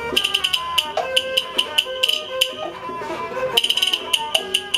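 Traditional Chinese opera music accompanying a Hainanese puppet show: fast, sharp percussion clacks, some in quick flurries, over a melody that steps up and down.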